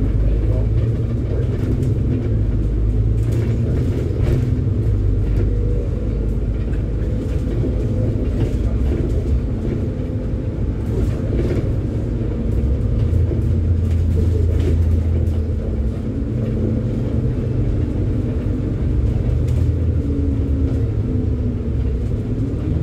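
A bus engine running under load with steady low road and tyre noise, heard from inside the moving bus. Occasional light rattles come through as it drives along.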